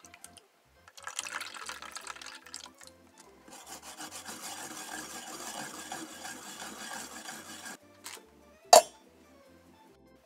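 Fresh ginger being grated on a metal grater: a steady scratchy rasping for about four seconds, after a shorter scratchy burst. One sharp knock near the end is the loudest sound, over light background music.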